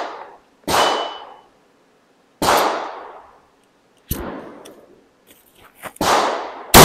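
Single gunshots, about five, each trailing off in a decaying echo, spaced well over a second apart, with the last two closer together. A steel target rings briefly after the shot about a second in.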